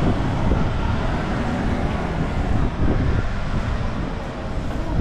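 Busy city street ambience: a steady rumble of motor traffic and vehicle engines running close by.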